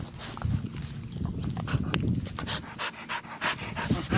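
A dog panting with quick, short breaths.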